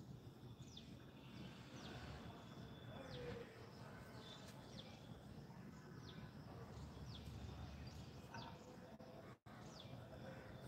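Faint bird chirps: short, quick downward-sliding calls repeating every second or so over a low background rumble.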